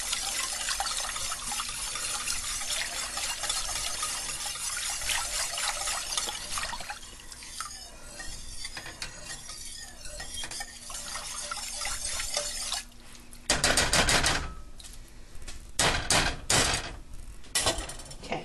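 Wire whisk stirring a thin, creamy soup in a stainless steel pot: steady swishing and splashing that eases off about halfway, followed by a few loud clanks against the pot in the last few seconds.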